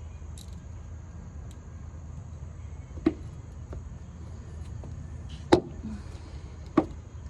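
Three short sharp clicks of metal bolts and wing nuts being handled while the bolts go into the wooden frame, over a steady low background rumble.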